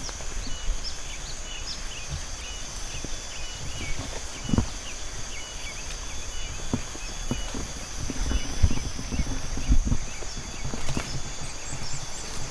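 Footsteps of a hiker walking a dirt forest trail: irregular thuds and scuffs, some heavier steps in the second half. A steady high-pitched hum with short repeated chirps runs behind them.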